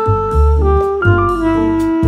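Background jazz music: a saxophone melody of long held notes over bass and drums.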